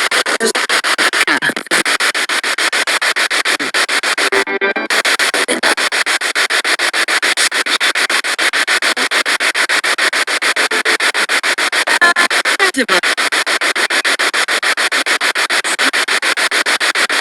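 Spirit box radio sweeping through stations, a loud hiss of static chopped into rapid, even pulses several times a second, with brief snatches of broadcast sound passing through.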